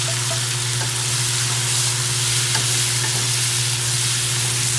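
Diced tomatoes and minced ginger frying in hot oil in a wok, giving a steady, dense sizzle as they are stirred with a wooden spatula.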